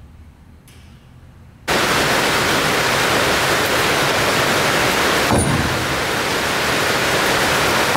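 A loud, steady rushing noise starts abruptly about two seconds in and runs on evenly, with a brief knock a few seconds later.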